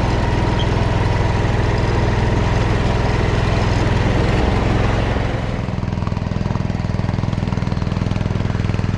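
Old garden tractor engine running steadily while the tractor tows a lawn roller across grass. About five seconds in it sounds more distant, its higher sounds fading.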